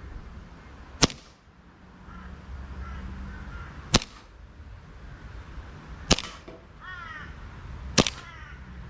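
Green-gas gel blaster pistol (JG Works Hi-Capa 4.3) fired four times, each shot a sharp crack, about two to three seconds apart. Between the last two shots a bird gives short runs of quick calls.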